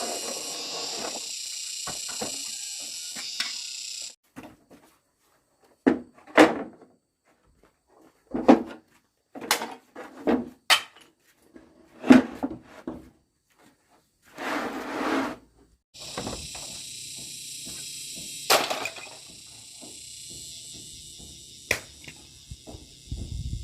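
A dozen or so irregular knocks and thuds, sharp and separate, with a steady high hiss before and after them.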